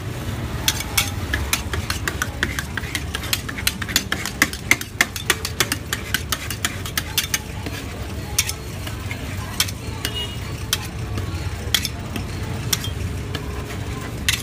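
Two metal spatulas chopping and scraping ice cream mix and cookies on the frozen steel plate of a fried ice cream cart: quick, sharp metal taps, several a second for the first half, then sparser. A steady low rumble runs underneath.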